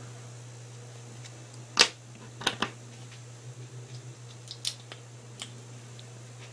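Cherry MX Green clicky mechanical keyboard switch being pressed and released, giving a few sharp clicks. The loudest comes about two seconds in, followed closely by a quick pair, then fainter clicks later.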